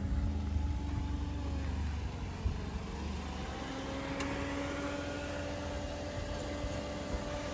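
A motor vehicle's engine running steadily, with a low rumble and a held hum that drifts slightly in pitch.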